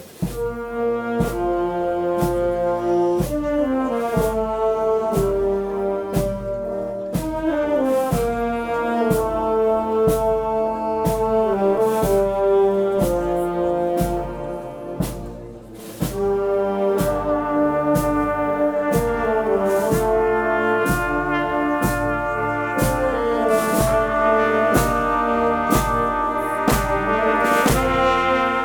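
Portuguese filarmónica brass band playing a processional march: trumpets and trombones carry the melody over a steady, even drum beat. The music breaks off briefly about halfway through, then starts again.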